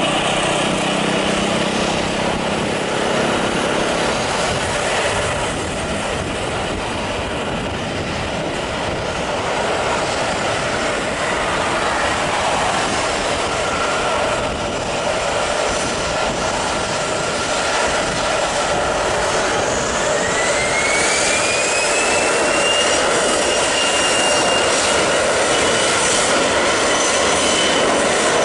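Boeing 737 Classic's CFM56 turbofan engines running with a steady roar. About two-thirds of the way through, a whine rises in pitch and then holds high as the engines spool up toward takeoff power.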